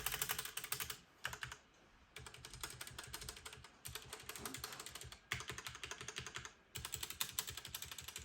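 Typing on a stock HyperX Alloy FPS mechanical keyboard with Cherry MX Red linear switches: rapid clattering keystrokes in runs of about a second, with brief pauses between. The stock, unlubed board, stabilizers above all, is what the owner calls an abomination.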